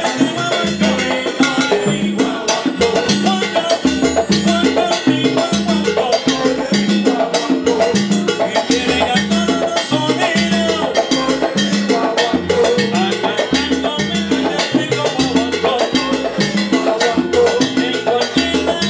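Live salsa band playing, with percussion and a repeating bass line under the band.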